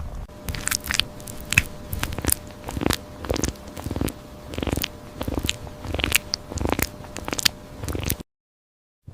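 Crisp biting and chewing crunches, one about every half-second to second, that cut off abruptly near the end.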